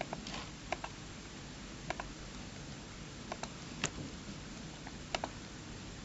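Computer mouse clicking: a scattering of sharp clicks, several in quick pairs, over a faint steady room hiss.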